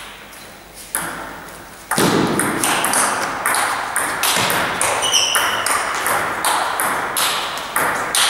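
Table tennis rally: the ball clicking off the bats and bouncing on the table, a couple of single bounces at first and then from about two seconds in a steady exchange of about two to three hits a second, each echoing in the gym hall. A brief squeak about five seconds in.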